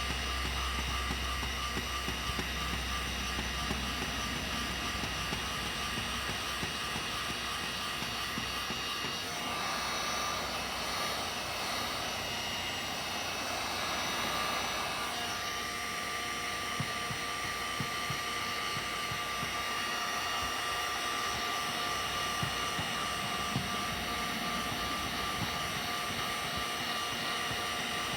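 Electric heat gun running steadily, its fan blowing air with a constant whine. The tone of the blowing shifts for several seconds about a third of the way in.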